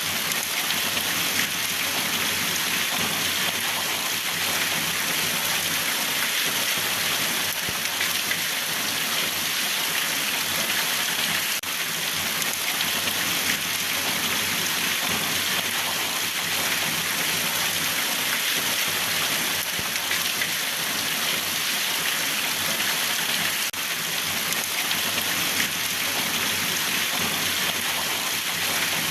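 Steady rain falling on a surface, an even hiss of raindrops with no breaks.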